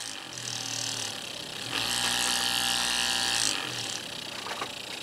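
Small DC hobby motor spinning a glue-stick rotor of neodymium disc magnets, whirring steadily while its speed is set with a 100-ohm rheostat. The whir grows louder about two seconds in and drops back about a second and a half later.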